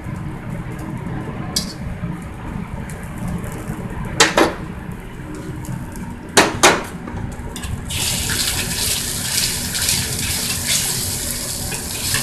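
Wok range with its burner running steadily and two sharp clatters of metal utensils. About eight seconds in, a loud, steady rush of liquid starts at the wok.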